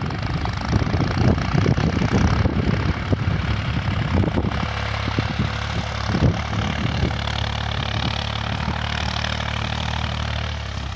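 New Holland TT55 tractor's diesel engine running under load while ploughing. Irregular rumbling in the first few seconds settles into a steady engine drone about halfway through.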